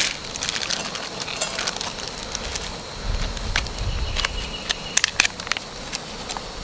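Scattered crinkles and clicks of a foil seasoning packet being handled, with a short low rumble in the middle.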